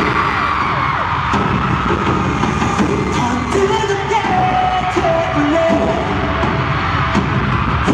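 Loud pop music with a heavy bass beat and a melody line, played over an arena sound system, with the audience screaming over it.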